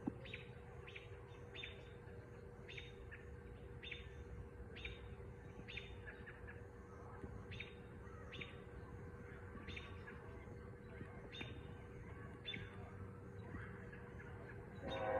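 A bird chirping over and over, short high calls that sweep down, coming roughly every half second to second, over a steady low outdoor rumble. A louder sound with several pitches starts right at the very end.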